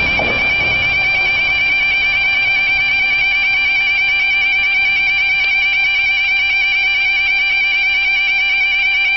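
Level crossing warning alarm sounding continuously with a high, fast-warbling tone. The noise of a passing train dies away in the first moment.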